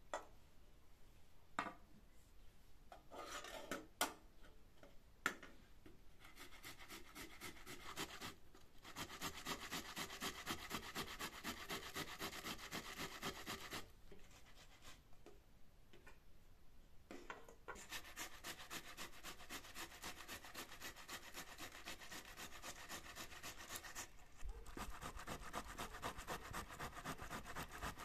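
Fresh tomatoes being grated on a metal box grater into a pan: long runs of rapid, even rasping strokes, broken by a few short pauses. A few sharp knocks come in the first few seconds, before the grating starts.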